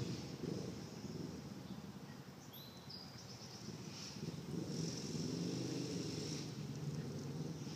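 Outdoor ambience: a low rumble that swells and fades, with a high insect-like buzz and a short rising chirp, perhaps a bird, about two and a half seconds in.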